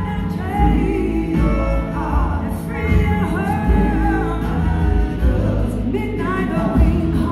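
A live band playing a slow soul-blues ballad: a woman sings held, wavering notes with backing voices over electric guitar, bass and two drum kits, heard from the audience in a large hall.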